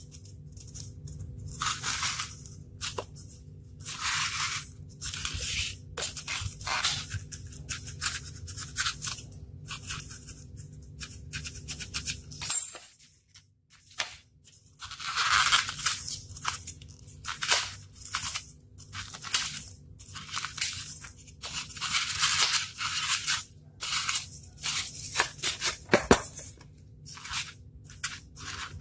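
A utility knife blade cutting and carving a styrofoam block: many short, scratchy strokes in quick runs, over a steady low hum, with a break of about a second and a half just before halfway.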